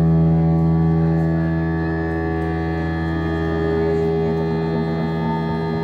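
Amplified live rock music holding one sustained chord, a steady drone with many overtones ringing through the concert PA.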